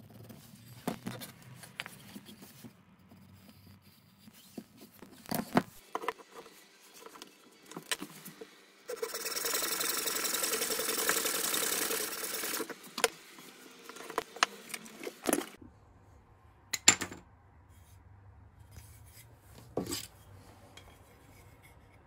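Scattered knocks and clicks of a wooden block and tools being handled on a workbench, then a small hacksaw cutting through the wooden block clamped in a vise for a few seconds around the middle, followed by more sharp clicks.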